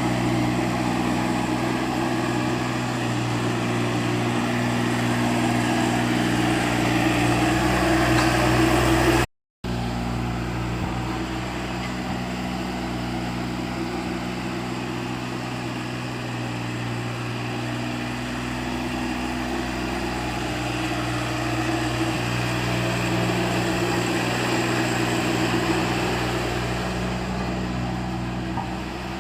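Mini road roller's small engine running steadily, with a brief cutout about nine seconds in.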